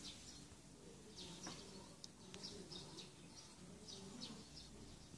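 Faint outdoor ambience: short, high bird chirps at irregular intervals, a few each second, over a low steady hum.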